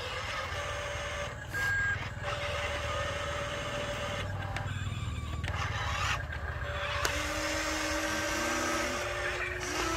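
Electric motors of a radio-controlled excavator whining as the boom and bucket move, the pitch rising and falling as each motor starts and stops, over a low steady hum.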